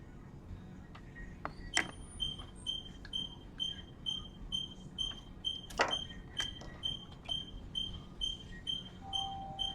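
An electronic beeper sounding a steady run of short, high beeps, about two a second, starting about two seconds in; a couple of sharp clicks come with it.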